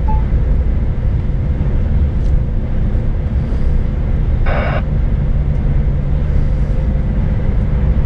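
Scania S500 truck heard from inside the cab while driving: a steady low engine and road drone with tyres on wet asphalt. About halfway through, a brief hiss-like burst.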